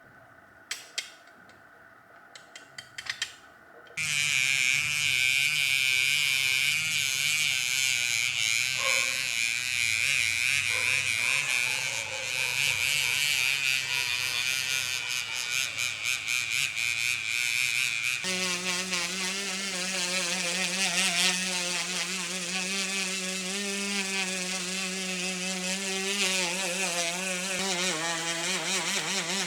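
A few light clicks, then a small electric power tool starts about four seconds in and runs steadily with a high whine. About 18 seconds in its sound changes to a lower, even pitched buzz, as if the tool has been put to different work or a different speed.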